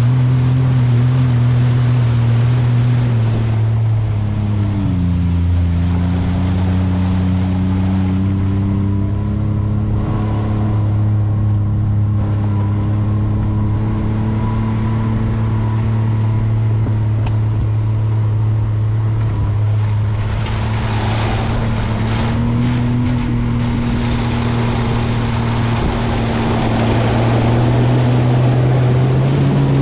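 Can-Am Maverick X3 side-by-side's turbocharged three-cylinder engine running at steady throttle. Its pitch drops about four seconds in as it eases off, then slowly climbs back. From about twenty seconds in, water rushes and splashes loudly as the machine ploughs through deep floodwater.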